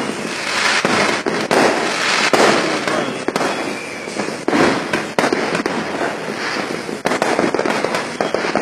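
Fireworks and firecrackers going off without pause: a dense crackle of rapid pops with many sharper bangs scattered through it.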